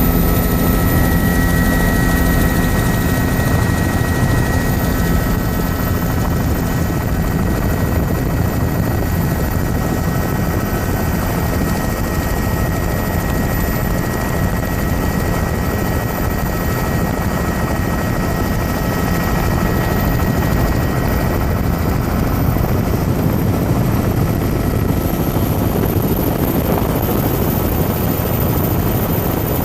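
Helicopter in flight: steady rotor and engine noise, with a thin high whine over it for most of the stretch.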